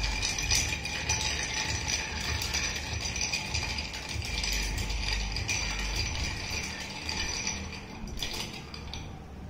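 Long bar spoon stirring ice in a glass for a Black Russian cocktail: a steady, rapid rattle and clink of ice against the glass that stops shortly before the end.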